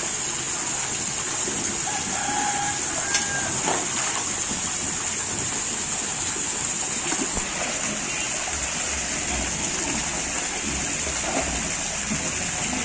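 Steady rush of water in a shallow fish tank, with light splashing from legs wading and a hand net scooping a rohu fish out of the water.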